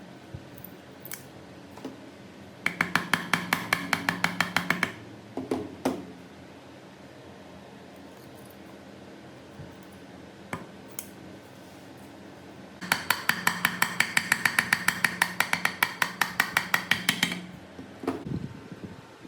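Rapid, even metallic clicking in two bursts, about ten clicks a second over a low steady hum: the first about two seconds long, the second, starting about halfway through, lasting about four and a half seconds.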